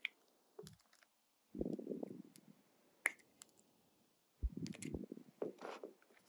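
Glossy slime being handled: two sharp sticky clicks and three short squishing bursts.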